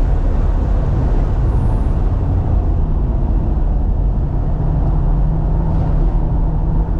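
Cabin sound of a 2018 BMW M3 Competition at speed on a race track: its twin-turbo inline-six running under load, mixed with road and wind noise. About four and a half seconds in, the engine settles into a steady drone.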